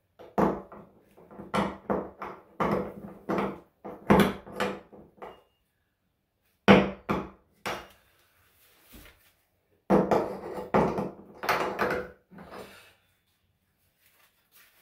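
Metal tub key knocking and clanking in a bathtub drain and against the tub as the drain flange is turned to tighten it. The knocks come in irregular runs: a cluster over the first five seconds, two sharp ones around seven seconds, and another run around ten to thirteen seconds.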